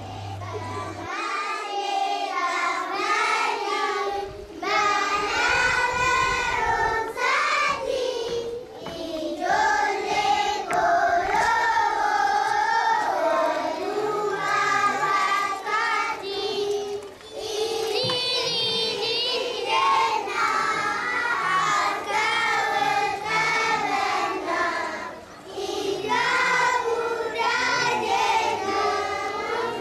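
A group of voices singing together in phrases, children's voices leading, with short pauses between phrases.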